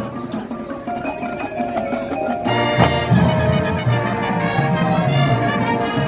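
Marching band playing its field show, brass over percussion. A softer passage for the first two seconds or so, then the full band comes in louder with a sharp hit just under three seconds in.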